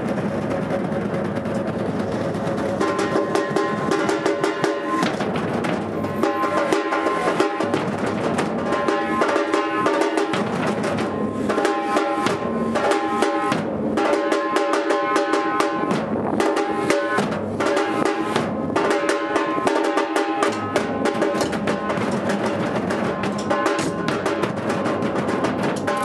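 Batucada drum ensemble playing together: large painted bass drums and smaller drums struck with sticks in a dense, driving rhythm. It is softer at first and comes in at full force about three seconds in.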